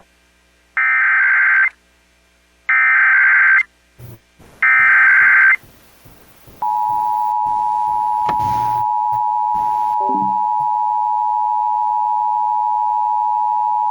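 Emergency Alert System SAME header: three one-second bursts of warbling digital data tones, here encoding a Required Monthly Test. About six and a half seconds in, the two-tone EAS attention signal (853 and 960 Hz) starts and holds steady.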